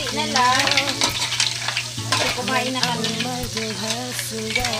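Food sizzling and crackling in a hot pan, with a wavering pitched sound and a steady low hum running alongside.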